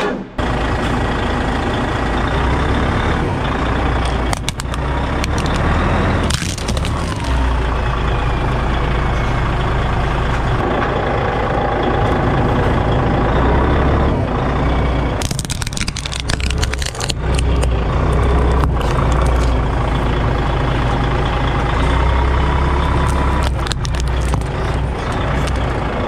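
Truck engine running steadily while the truck's wheel rolls onto plastic children's toys, with several short bursts of cracking and crunching as the toys break under the tyre.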